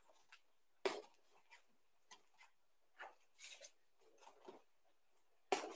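Faint movement noise from uchi komi practice with a throwing dummy: one sharp knock a little under a second in, then a few soft taps and rustles of bare feet stepping on judo mats and of the dummy's jacket.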